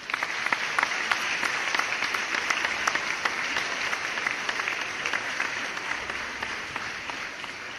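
A crowd applauding, a dense patter of clapping that slowly dies away toward the end.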